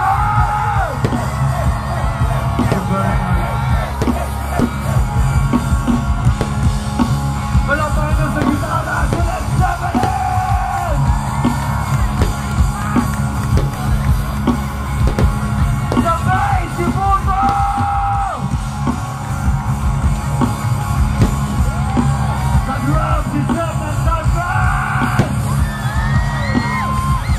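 A rock band playing live, with loud drums, heavy bass and singing, over a crowd yelling and singing along. It is heard from inside the audience.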